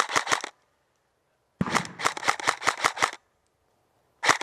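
Airsoft rifle firing full-auto bursts, about nine shots a second. One burst stops half a second in, a second lasts about a second and a half, and a third begins near the end.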